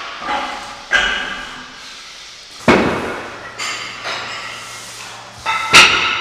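Metal weight plates and bars clanking in a weight room: three loud, sharp clanks, about a second in, near the middle and near the end, each ringing and echoing away, the last the loudest.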